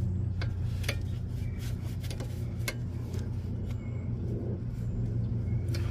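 A combination wrench loosening the brake hose fitting on a front brake caliper, with a handful of sharp, irregular metallic clicks over a steady low hum.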